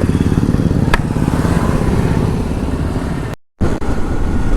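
Motorcycle engine running steadily while riding, a fast low pulsing beat. The sound cuts out completely for a moment about three and a half seconds in.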